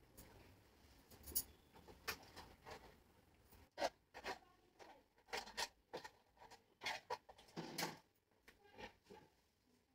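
Hair being handled and clipped up on the crown: a run of short, irregular scratchy rubs and rustles.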